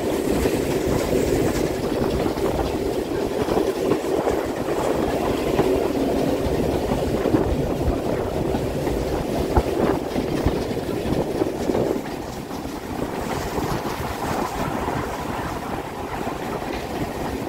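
Bulleid Battle of Britain class Pacific 34072 '257 Squadron', a steam locomotive, running at speed, heard from its own footplate: a steady rumble and clatter of wheels on rail, dropping a little in loudness about twelve seconds in.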